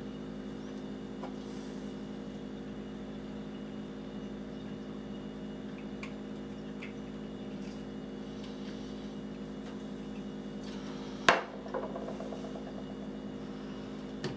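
Faint metal clicks as the faucet handle's screw is fitted, with one sharp clack about eleven seconds in, over a steady hum.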